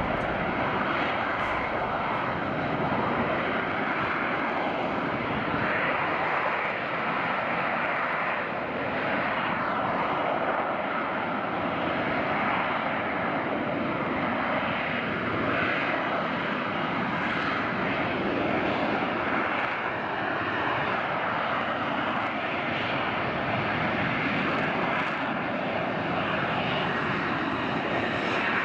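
Jet aircraft engine running steadily: a constant, even rushing noise that holds its level, with no clear rise or fall in pitch.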